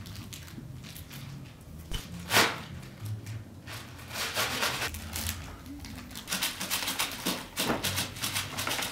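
Irregular runs of quick small clicks and taps from hands fidgeting with a small object, with one sharper knock about two and a half seconds in, over a low steady room hum.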